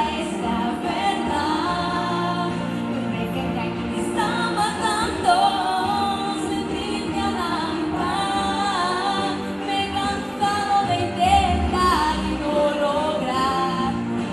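A girl singing a ballad in Spanish into a handheld microphone, amplified through the stage speakers, over musical accompaniment with held notes.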